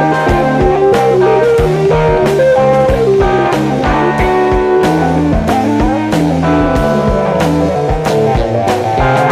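Instrumental progressive rock: a guitar plays a melodic line over bass and drums that keep a steady beat.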